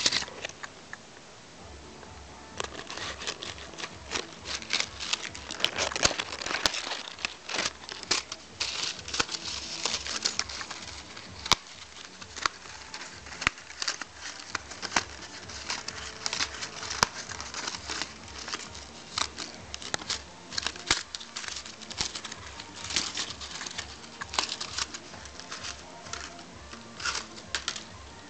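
Paper crinkling and rustling as a chihuahua puppy bites and tugs at it: a continual run of irregular short crackles and crinkles.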